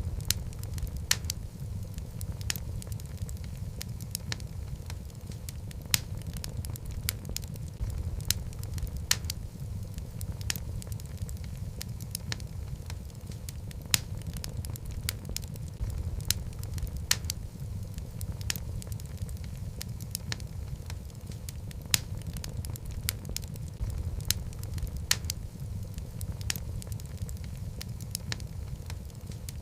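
Wood logs burning in a fireplace: a steady low rumble of flames with sharp, irregular crackles and pops, several every few seconds.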